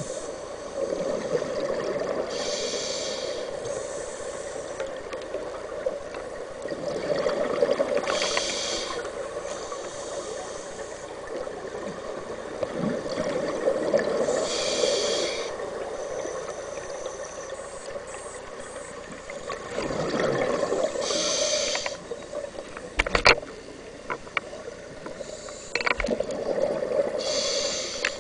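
Scuba diver breathing through a regulator underwater: a hissing inhalation about every six seconds, each followed by a bubbling, burbling exhalation, with a steady hum under it. A few sharp clicks about three-quarters of the way through.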